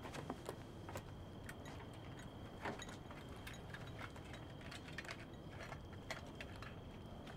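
Scattered light clicks and taps of a light bulb, its socket and wire being handled by hand, over a faint steady high-pitched tone.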